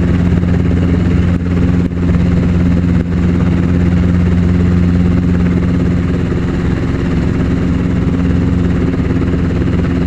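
Helicopter engine and rotor noise heard from inside the cockpit: a loud, steady drone with a deep, even hum.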